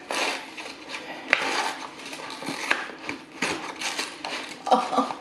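Kraft-paper takeout box being pried and pulled open by hand: irregular rustling and scraping of the paperboard, with a couple of sharp clicks.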